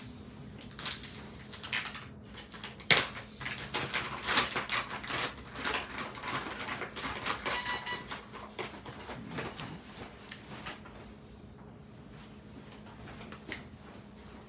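Kraft paper and plastic bags rustling and crinkling as they are handled and opened. A short squeak comes about eight seconds in, and a steady low hum runs underneath. The rustling dies down near the end.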